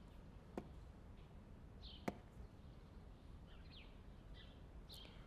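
Near silence: quiet room tone with a few faint, short bird chirps and a couple of soft clicks.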